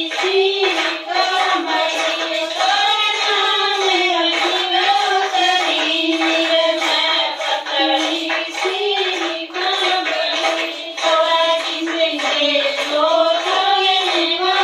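A dance song playing: a high singing voice over a beat. The sound is thin, with almost no bass.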